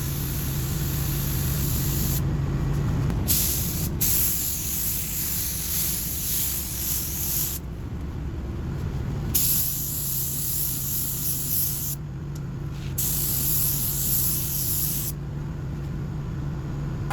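Compressed-air paint spray gun hissing in repeated bursts of about two to four seconds each, stopping between passes, over a steady low hum.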